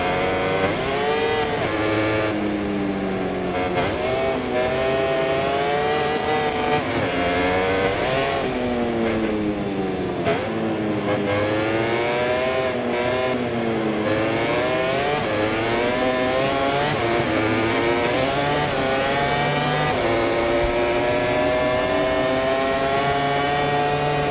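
MotoGP racing motorcycle's four-cylinder engine heard from onboard, revving hard up through the gears and dropping sharply on downshifts into corners, over rushing wind; near the end it pulls in one long rising climb.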